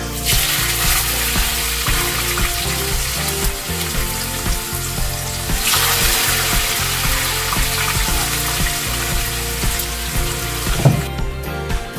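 Chopped potatoes sizzling in hot cooking oil in a frying pan as they are dropped in and stirred. The hiss swells again about halfway through and dies away near the end.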